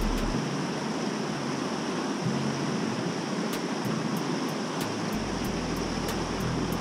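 Fast-flowing stream rushing over rocks and rapids: a steady rush of water.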